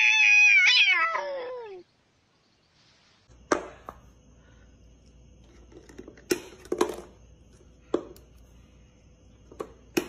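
A domestic cat's long, drawn-out meow, holding its pitch and then sliding down as it ends about two seconds in. After a pause come about six sharp taps and knocks, spaced irregularly, as a cat nudges a paper drink cup on a wooden floor.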